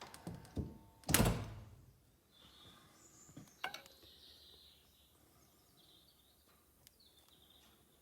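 A few sharp clicks, then a heavy thump about a second in. A couple more clicks with a short falling squeak come around three and a half seconds, and birds chirp faintly.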